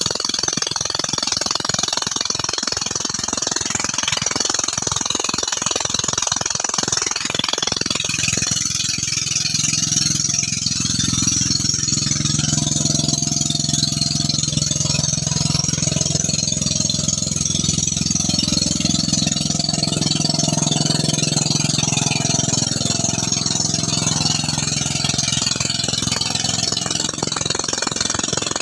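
Robin small petrol engine running steadily, driving the suction pump of a gold-sluicing rig. About eight seconds in its sound turns from a rapid pulsing to a smoother hum.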